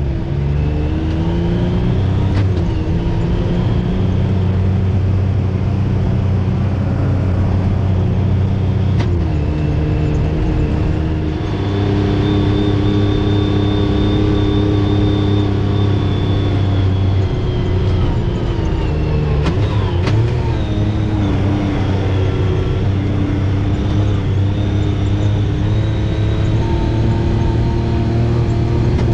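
Side-by-side UTV engine running steadily under way, its pitch rising and falling now and then with the throttle.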